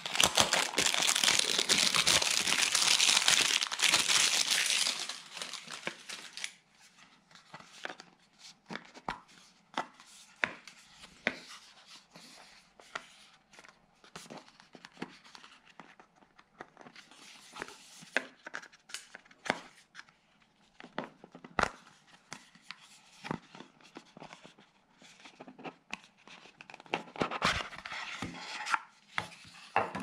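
Cardboard pen packaging being torn open and crinkled for the first five seconds or so. Then come scattered light clicks and rubs as the box is handled and opened, with a busier stretch of rubbing near the end as the inner box slides from its sleeve.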